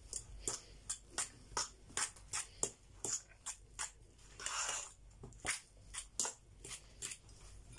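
Hand kneading and mixing a mayonnaise-dressed filling of grated cheese, egg and crab sticks in an enamel bowl: soft squelches and taps about three a second, with a longer rustle about halfway through.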